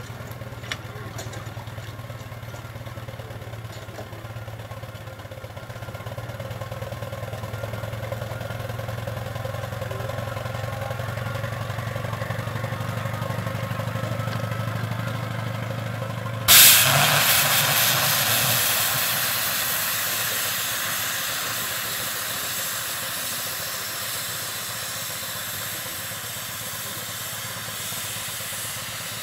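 Scale-model Case steam traction engine venting steam: a sudden loud hiss about halfway through that slowly eases off, after a steady low hum.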